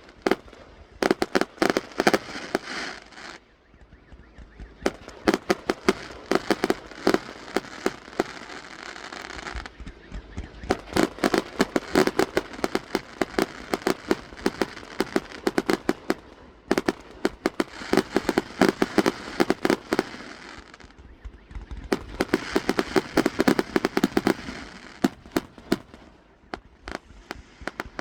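Fireworks going off in rapid volleys of sharp cracks and pops. The crackling comes in dense waves broken by brief lulls.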